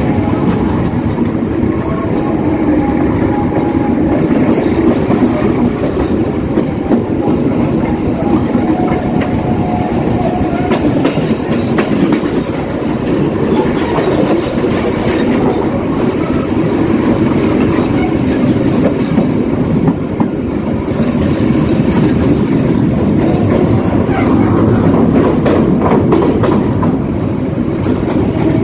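Passenger train running at speed, a steady rumble with the wheels clattering over rail joints and junction points. Heard at an open carriage door.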